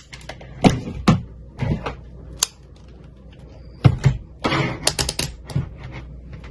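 Irregular sharp clicks and snaps of a hand wire stripper working on the ends of stranded copper wire, with a short rustle of handling about four and a half seconds in.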